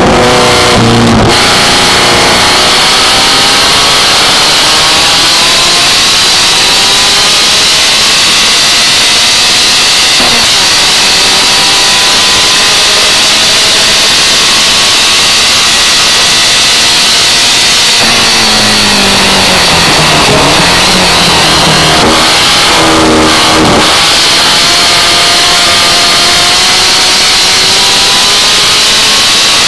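Birkin S3 sports car's engine under hard acceleration, its pitch climbing again and again as it revs up through the gears. About twenty seconds in the revs fall steeply and then climb once more.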